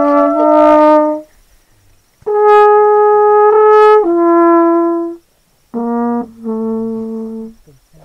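Music: a slow melody of long, held brass notes, horn-like, in three phrases with short silences between them. The pitch drops a step partway through the middle phrase.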